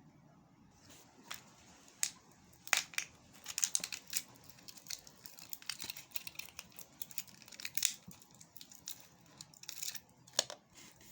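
Vape pod packaging being handled and opened by hand: an irregular run of short, sharp clicks and rustles, busiest in the middle.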